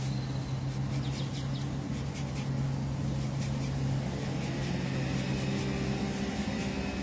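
A steady low motor hum that fades out about six seconds in, over a background noise haze with a few faint clicks.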